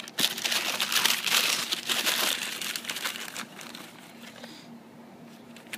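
Tissue paper crinkling and rustling as a hand digs into a shoebox and pulls a toddler sneaker out of its wrapping. The crackle lasts about three seconds, then dies down.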